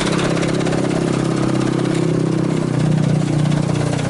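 Mitsubishi Canter truck's diesel engine idling steadily, its note shifting slightly about three seconds in.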